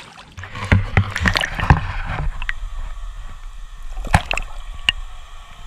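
Water splashing and sloshing as a striped bass is let go by hand, mostly in the first two seconds, with a sharp knock about four seconds in and a smaller one a little later.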